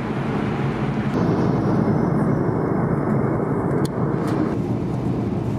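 Steady engine and airflow noise of an airliner heard inside the cabin. Its tone changes abruptly a few times, going duller about two seconds in.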